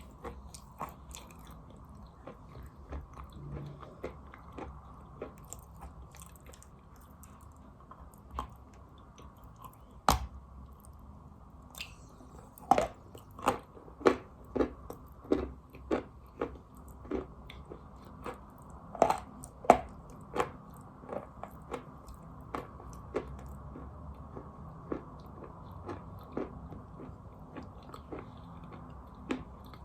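Wet chalk being bitten and chewed close to the microphone: sharp crunches, loudest in a quick run of bites about halfway through, with quieter chewing crackles between.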